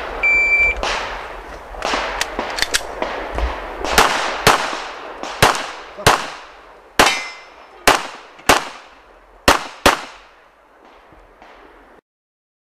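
An electronic shot timer beeps once, and a S&W M&P9 Pro 9mm pistol then fires a string of single shots, about half a second to a second apart, for an IPSC stage. A steel target rings after one hit near the middle. The sound cuts off suddenly near the end.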